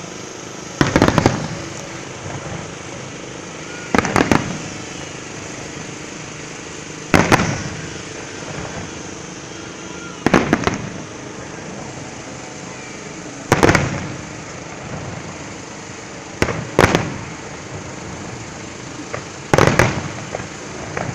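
Fireworks shells bursting, a sharp bang about every three seconds, seven times, one of them a quick double, each trailing off in a rolling echo over steady background noise.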